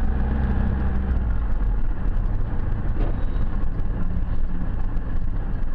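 Car engine and road noise heard from inside a moving vehicle: a steady low engine hum over a wash of tyre and road noise.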